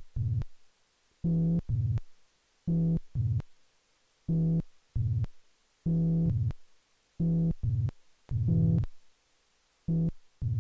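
Electronic synthesizer tones playing short, low, buzzy notes. The notes start and stop sharply and come mostly in pairs, repeating about every second and a half.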